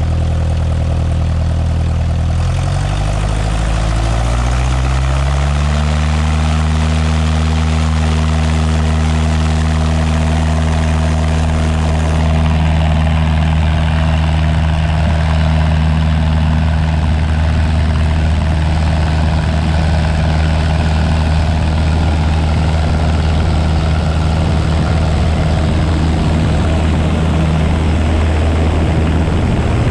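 Propeller aircraft engine rising in pitch for a few seconds near the start as power comes up for takeoff, then holding a loud, steady drone.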